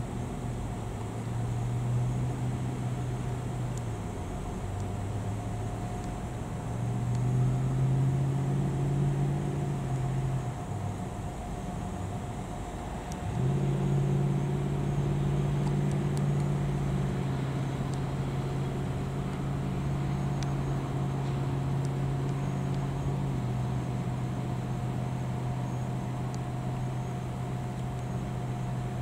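Motor vehicle engine running steadily, its hum shifting in pitch in steps several times.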